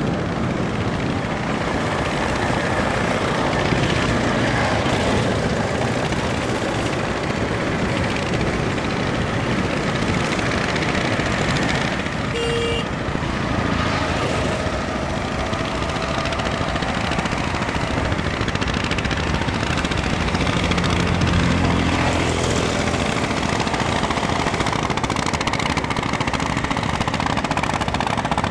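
Steady, rattling engine noise of motor boats on a river, with a low pitched tone joining in about two-thirds of the way through.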